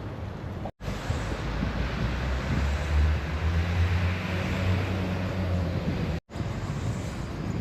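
Street traffic: a motor vehicle's engine hums close by over general road noise, loudest in the middle. The sound drops out for a moment twice.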